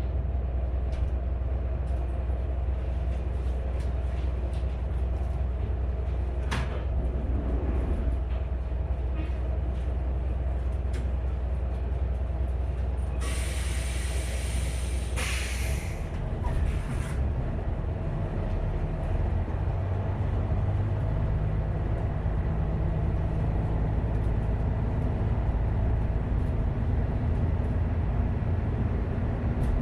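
Kanto Railway KiHa 532 diesel railcar's engine running steadily, then a hiss of air about halfway through as the air brakes release. After that, the engine note rises and strengthens under load as the railcar pulls away.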